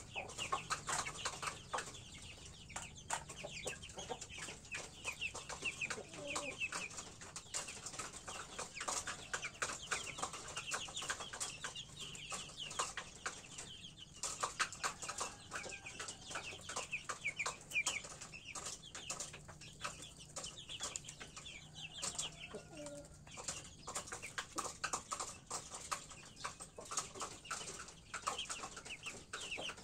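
Chickens clucking and a chick peeping, over frequent sharp ticks of a rooster's beak pecking feed from a metal tray.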